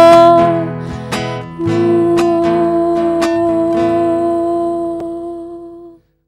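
Nylon-string acoustic guitar closing a song: a few plucked notes, then a final chord ringing and slowly fading before the sound cuts off about six seconds in.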